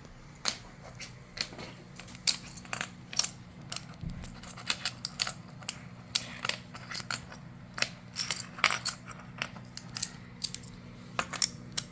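Magnetic building blocks clicking and clacking as they are pulled apart and snapped back together, many sharp irregular clicks, busiest in the second half, over a faint steady hum.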